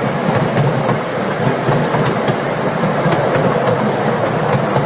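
Miniature park train rolling along its track: a steady rumble of wheels and cars with irregular sharp clicks as the wheels pass over rail joints.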